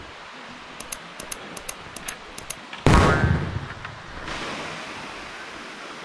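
Steady rush of stream and waterfall water. A run of faint, very high ticks comes in about a second in, and near the middle there is one sudden loud burst that fades away over a second or so.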